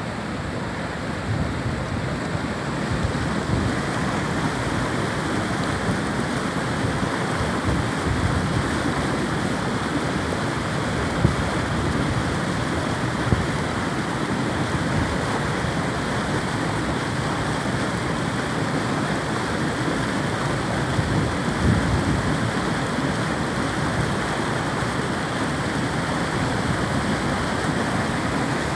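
A small stream running over rocks, a steady rush of water, with wind gusting on the microphone underneath.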